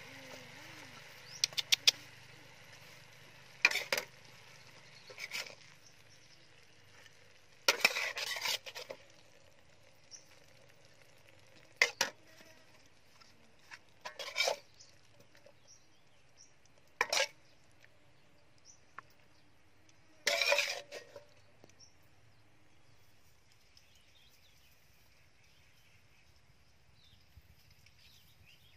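A metal spatula scraping and clinking against a metal wok in short, sharp bursts, about eight times over the first twenty seconds, as fried fish and sauce are scooped out. A faint sizzle fades out at the very start, and after the last scrape only faint background remains.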